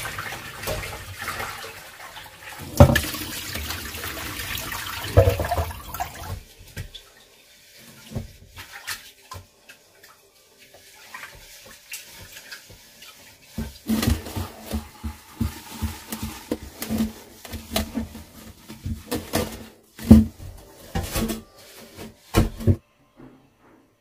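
Kitchen tap running while a large stainless steel pot is washed in the sink, with sharp knocks of the pot. The water stops about six seconds in; after a quieter stretch of light clicks comes a busy run of clanks and knocks as the metal pot is scrubbed and handled, cutting off suddenly just before the end.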